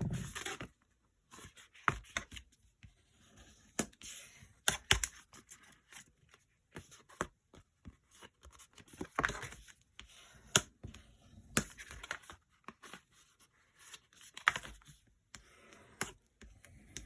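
Patterned paper and cardstock being handled, with irregular rustling, scraping and light taps.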